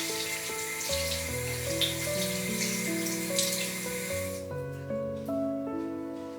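Water running from a tap into a sink, cutting off suddenly about four seconds in, with soft background music throughout.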